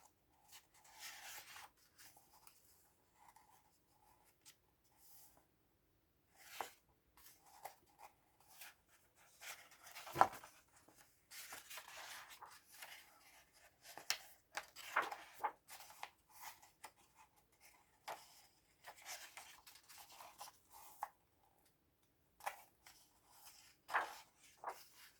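Pages of a paperback colouring book being turned and handled: faint, irregular paper swishes and rustles, with a sharper tap about ten seconds in.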